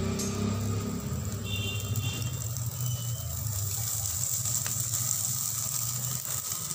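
A steady low mechanical hum, like a motor running, with a faint steady high hiss over it and a few brief high tones in the first half.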